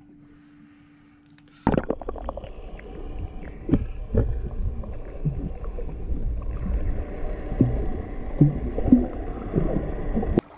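Underwater audio through an action camera's waterproof housing: a muffled low rumble of water with gurgles and scattered knocks. It cuts in suddenly about two seconds in and cuts off suddenly near the end; before it there is only a faint steady hum.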